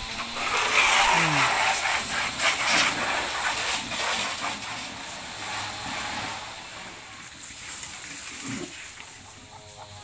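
Water splashing and pouring, loudest in the first few seconds and then fading out, with a few short pig grunts from the pens.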